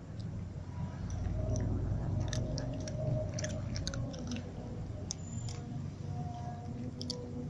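Two cats crunching dry kibble, a scatter of irregular crunches over a low rumble.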